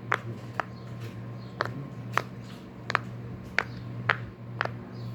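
Silicone pop-it fidget toy being pressed bubble by bubble: about eight sharp little pops, roughly one every half second.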